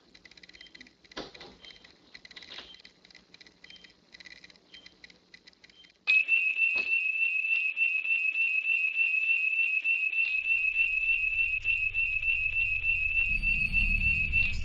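Faint ticking and clicks, then about six seconds in a security alarm starts suddenly: a loud, high-pitched tone with a fast warble that holds to the end. A low rumble joins under it for the last few seconds.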